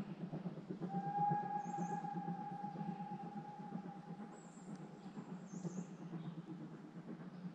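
A single long whistle of one steady pitch, starting about a second in and held for about three and a half seconds, typical of a steam locomotive whistle on the heritage line. Under it, steady rustling of footsteps on a woodland path, and a few short high bird chirps.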